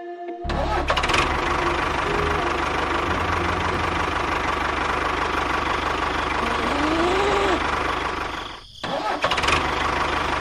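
A small engine running steadily, likely on a homemade mini tractor, starting abruptly just after the beginning and briefly dropping out near the end before running again.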